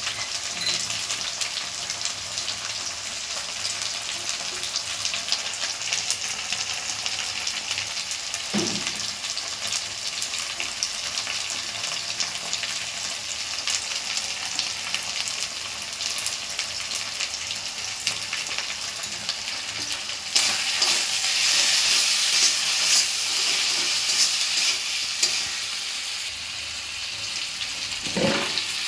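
Onion, tomato and chili masala sizzling in hot mustard oil in a black iron kadai: a steady frying hiss that grows louder about two-thirds of the way through. A knock about a third in, and a thump near the end as cut potato pieces are tipped into the pan.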